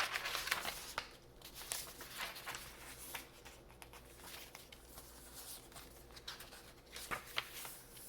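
Paper rustling and crackling as the pages, cards and pockets of a handmade paper journal are handled and turned, busiest about the first second and again briefly near the end.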